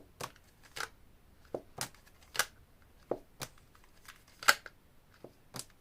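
Tarot cards being handled and laid out: about ten short, sharp card snaps and clicks at uneven spacing.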